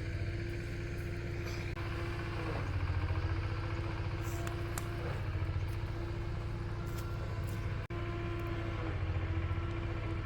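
A small engine running steadily: a low, evenly pulsing drone with a steady hum above it.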